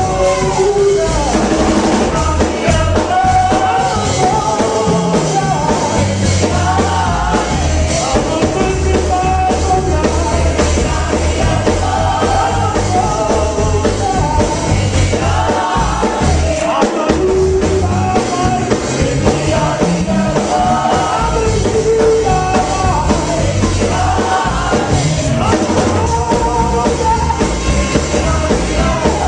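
Church praise team performing live: singers over a full band with drums and heavy bass, loud and continuous.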